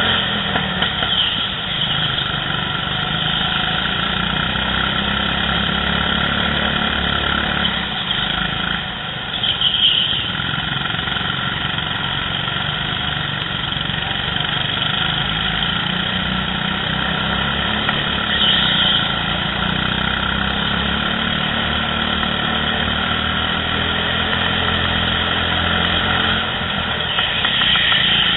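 Go-kart engines running steadily during a race, heard from the driver's seat, with a short higher-pitched sound coming back about every nine seconds.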